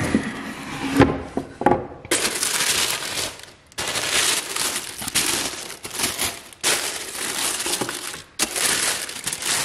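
A cardboard shoebox lid comes off with a knock about a second in. Then tissue paper rustles and crinkles in several long bursts as it is unfolded by hand.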